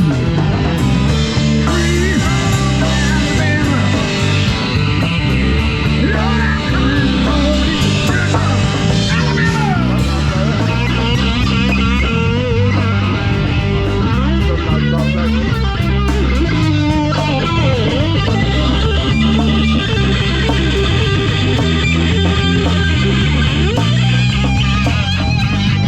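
Live rock band playing, with guitar prominent over a stepping bass line and steady drums.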